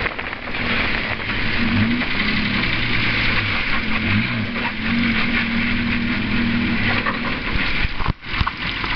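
Vehicle engine running, its pitch dipping and rising several times as it is revved and eased off, over a steady rushing noise. A few sharp clicks and knocks come near the end.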